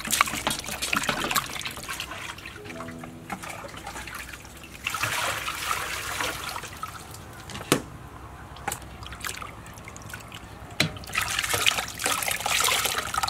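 Water splashing in a metal basin as a whole plucked chicken is rubbed and turned in it by hand, then water poured over the chicken from a plastic dipper twice, with a couple of sharp knocks in between.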